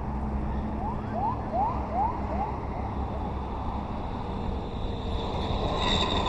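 Steady rumble of road traffic from the adjoining toll road, with a run of five quick rising chirps about a second in and a brief high-pitched tone near the end.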